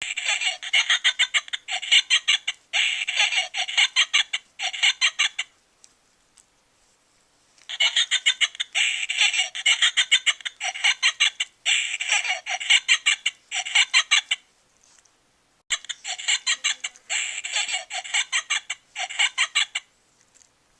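High-pitched cackling laughter in rapid pulses, coming in repeated bursts of one to two seconds with two longer pauses.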